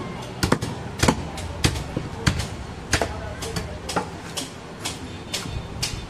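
Heavy butcher's knife chopping through goat meat and hitting a wooden chopping block: about a dozen sharp, uneven chops, roughly two a second.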